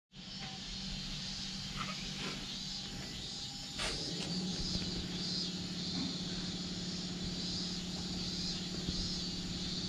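Outdoor summer ambience: insects droning in a steady, pulsing high buzz over a steady low hum that grows louder about four seconds in, with one sharp click near four seconds.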